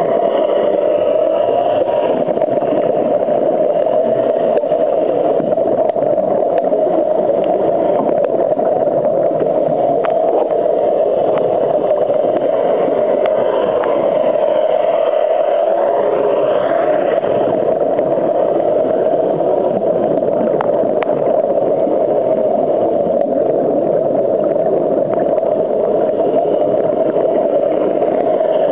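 Steady, muffled underwater noise picked up by a diving camera in its waterproof housing: an even rushing hum with no clear separate events.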